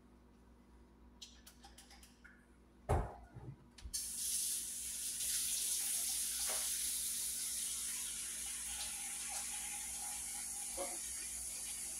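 A sharp knock about three seconds in, then a kitchen tap is turned on about a second later and water runs steadily into the sink for hand washing after handling raw chicken.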